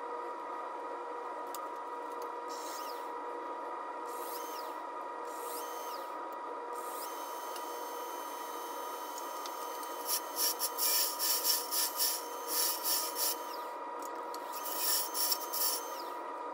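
Laguna Revo wood lathe running with a steady motor whine while a turning tool cuts a spinning maple pawn blank. The cuts come as irregular scraping bursts, heaviest in the second half.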